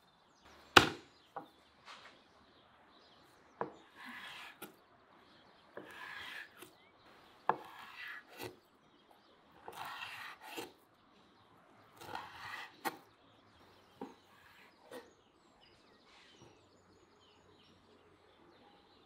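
Chopping on wood: scattered sharp knocks, the loudest about a second in, alternating with short scraping sounds.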